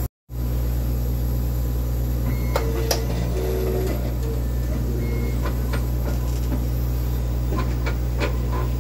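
Siemens Dimension EXL 200 clinical chemistry analyzer running: a steady low hum, with a few short motor tones in the middle and scattered soft clicks of its mechanisms, more of them near the end.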